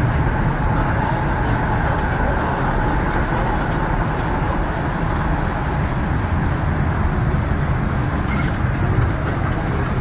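Steady rumble of an MTR East Rail Line R-Train electric multiple unit running at speed through a tunnel, heard inside the carriage, with a faint higher note over it in the first few seconds.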